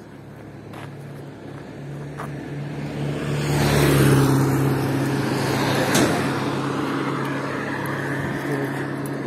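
A car passing close by: engine hum and tyre noise swell to a peak about four seconds in, then ease off slowly.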